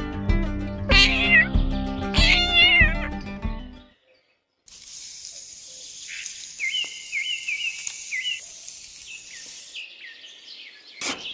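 Background music with meow-like animal sound effects over it, which stops about four seconds in. After a short silence a nature track takes over: a steady hiss with a bird chirping in a quick repeated phrase.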